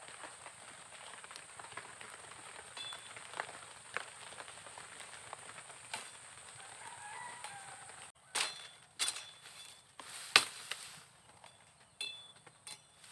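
Light scattered clicks, then a cluster of sharp hard knocks about eight to eleven seconds in, some with a brief ringing tone, the loudest near ten seconds; two more knocks follow near the end.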